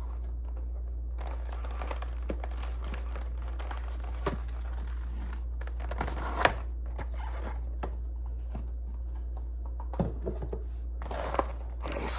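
Packaging of a boxed HO-scale model locomotive being handled and opened: crinkling and rustling of plastic and paper, with scattered sharp clicks and taps, loudest about six and a half seconds in and around ten seconds.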